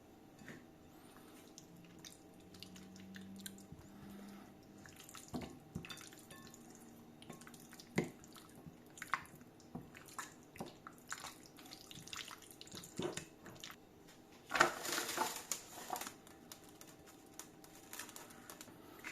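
Quiet kitchen food-preparation sounds: scattered light clicks and wet, dripping taps. A louder rush of noise lasts about a second and a half near the end.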